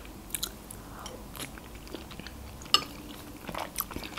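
Close-miked mouth chewing soft pasta: scattered wet smacks and clicks at irregular intervals, with a sharper click about two and a half seconds in.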